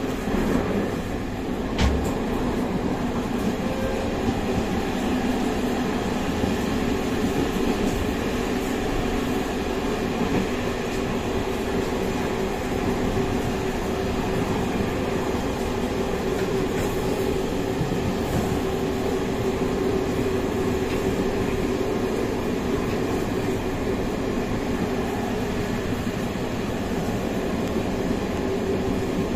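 Steady rumble and hiss of a vehicle travelling through rain, with a steady low hum running under it.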